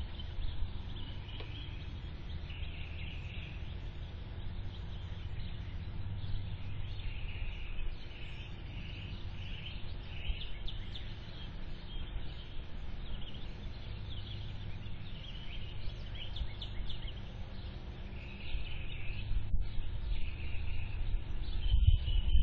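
Small birds chirping and calling again and again over a steady low rumble. Near the end the rumble grows louder and more uneven.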